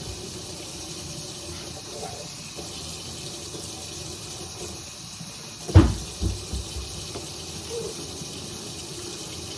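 Kitchen tap running steadily into a sink while dishes are washed, with one loud knock about six seconds in and a couple of lighter knocks just after.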